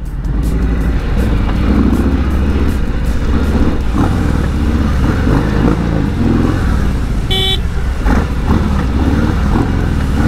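Harley-Davidson Sport Glide's Milwaukee-Eight V-twin engine running under way in traffic, its note rising and falling with the throttle. A vehicle horn toots once, briefly, about seven seconds in.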